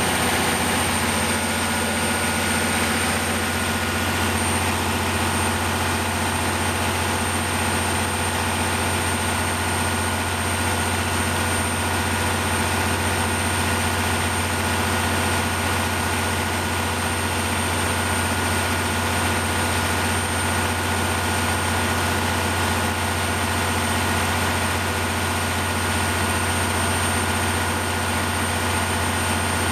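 Kohler 350 kW Detroit Diesel generator set running at a steady speed: an even, low engine hum with a thin, steady high-pitched whine above it.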